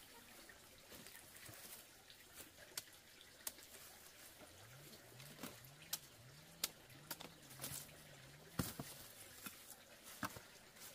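Hands of green bananas being cut off the stalk with a knife: irregular sharp clicks and snaps, more frequent in the second half, the loudest a little past the middle.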